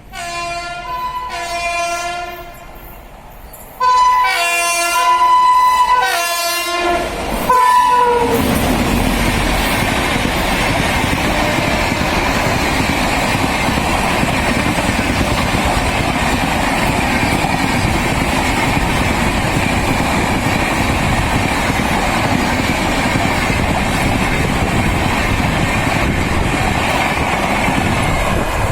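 WAP-7 electric locomotive's twin-tone horn sounded by the crew in acknowledgement: one blast, a short gap, then louder blasts from about four seconds in, the pitch dropping as the locomotive passes at about eight seconds. Then the steady, loud noise of the train's LHB coaches running past on the track.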